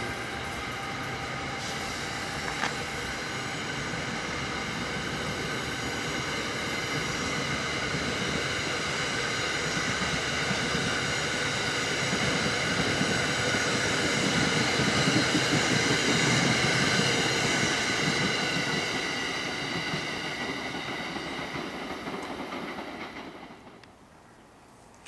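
A train passing, a rumble of wheels on rail with a steady high whine over it. It grows louder toward the middle, then fades and drops away sharply near the end.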